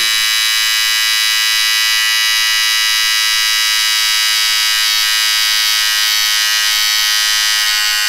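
Electric beard trimmer running continuously with a steady, high buzz.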